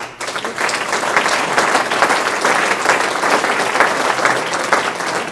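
Audience applauding, dense clapping that starts suddenly and holds steady.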